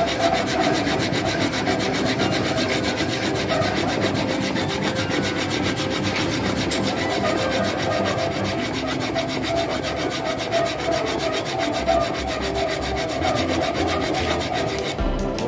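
Draw filing: a flat hand file held crosswise is pushed back and forth along the edge of a metal workpiece clamped in a bench vise, giving a steady rasping scrape.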